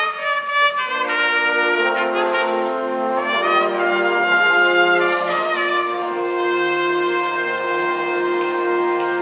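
Jazz big band horn section (trumpets, trombones and saxophones) playing a few short chords, then one long held chord from about three seconds in.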